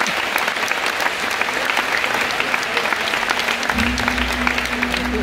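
Theatre audience applauding, a dense patter of many hands clapping. About three-quarters of the way through, a low held note of the show's music comes in under the clapping.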